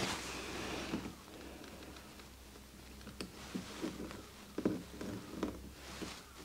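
A short hiss in the first second, then scattered light taps, clicks and rustles of things being handled.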